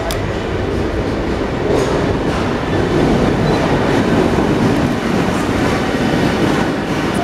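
GBRf Class 66 diesel-electric locomotive 66740 approaching and passing close by, its two-stroke V12 diesel engine running with a loud drone together with wheel and rail noise. The sound grows louder over the first three seconds and then holds as the locomotive goes by.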